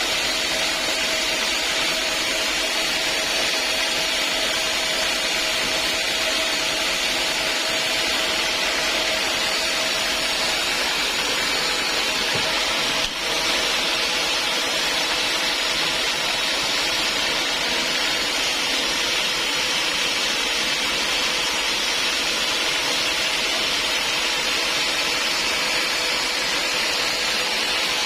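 Sawmill saw cutting through a log, a steady high-pitched noise with a faint whine that fades about ten seconds in and a brief drop in level about thirteen seconds in.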